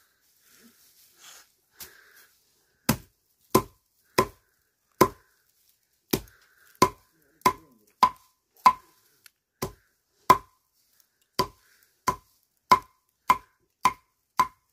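A curved steel blade chopping into a bundle of dried thatch grass: about eighteen sharp chops, roughly one and a half a second, starting about three seconds in.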